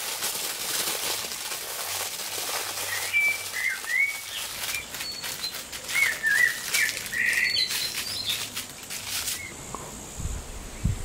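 Aluminium foil crinkling and rustling as it is folded and rolled by hand, with small birds chirping over it. The crinkling stops near the end, leaving the birdsong and a single low thump.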